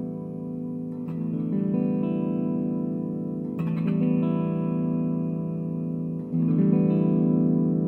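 Electric guitar chords strummed through an Ampeg V4 tube amp, three strums about two and a half seconds apart, each chord left to ring while one of the amp's tone controls is turned.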